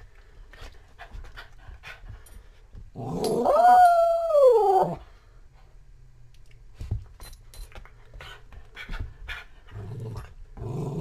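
A dog gives one long howling whine of about two seconds, rising a little in pitch and then falling away. Scattered quieter short sounds come before and after it, and another call begins near the end.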